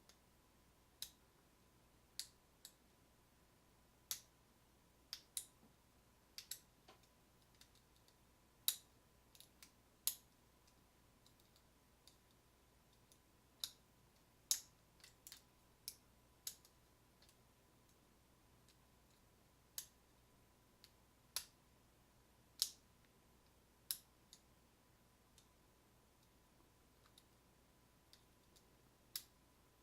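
Single-pin picking a Schlage deadbolt: a metal lock pick clicking against the spool and standard pins in the cylinder, in irregular sharp clicks, sometimes two or three close together, over a faint steady hum.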